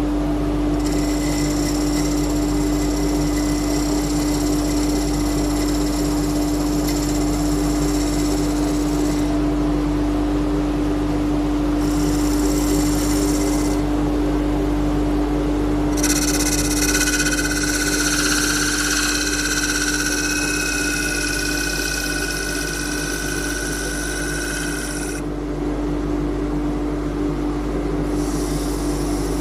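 Wood lathe running with a steady hum while a homemade turning tool cuts the outside of a spinning wooden cup. The cutting comes in four passes, the longest about nine seconds, each adding a high-pitched scraping over the motor.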